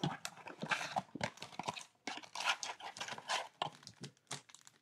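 Trading-card packaging being handled: a run of irregular crinkles, taps and clicks as a cardboard blaster box is opened and its foil card packs are taken out.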